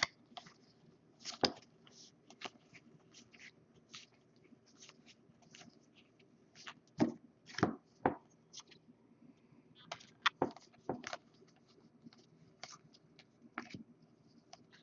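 Trading cards being handled and sorted: scattered soft clicks, taps and flicks of card stock, irregular, with a few louder clusters about seven and ten seconds in.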